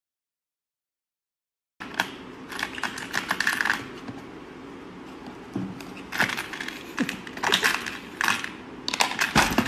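Silence for about two seconds, then a run of clicks and rattles from small hard items and plastic parts being handled in a plastic toolbox organizer. A louder rushing noise starts just before the end.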